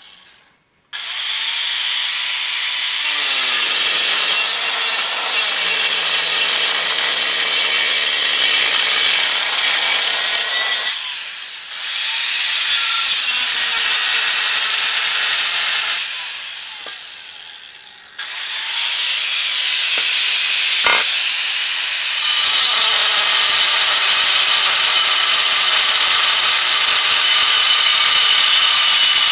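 Angle grinder with a cut-off wheel cutting into the bell housing of a VW transmission case: a loud grinding whine that starts about a second in. It eases off twice and picks up again, then runs steadily through the end.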